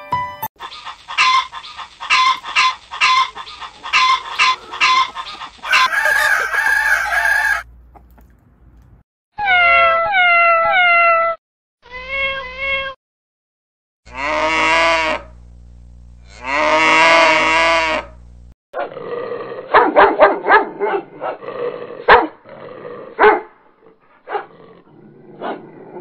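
A run of different farm and pet animal calls, one after another with short gaps, including two long cow moos near the middle.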